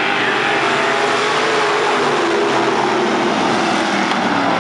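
Engines of a pack of Sportsman-class dirt-track race cars running at speed around the oval, several pitches layered together, rising and falling as the cars go past.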